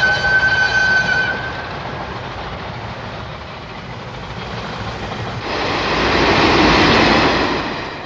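Train sound effects: a steady horn tone that stops about a second and a half in, then the running rumble of the train, with a rushing noise swelling from about five seconds in.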